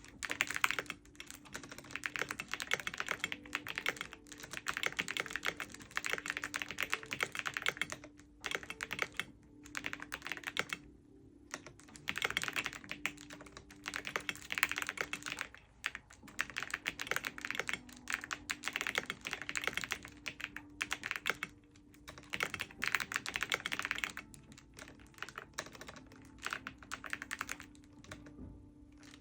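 Typing on a computer keyboard: fast runs of key clicks in bursts of a few seconds, broken by brief pauses, with a faint steady hum underneath.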